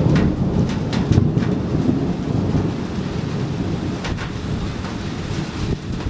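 Rolling thunder, a low continuous rumble that is heaviest in the first second or so and eases a little after. Gentle rain falls under it, with a few sharp ticks of drops.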